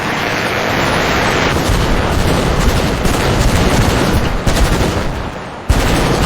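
AI-generated foley from the ControlFoley model for an air-raid scene: a dense, continuous barrage of explosions and rapid gunfire-like crackling, with a sudden loud blast shortly before the end.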